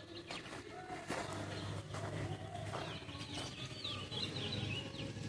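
Small birds chirping, with a quick run of high twittering notes in the second half, over a low steady rumble and a few sharp knocks.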